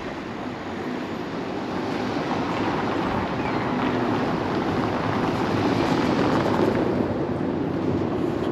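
A car driving over granite cobblestones close by, with steady tyre noise on the stones that grows louder over the first six seconds and then holds.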